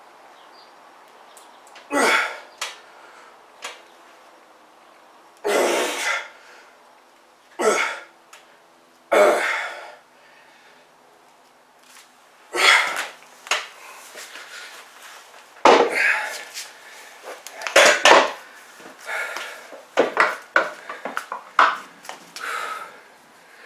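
Sharp, forceful breaths every couple of seconds as a man presses a pair of heavy plate-loaded dumbbells, with the iron plates clinking, more often near the end.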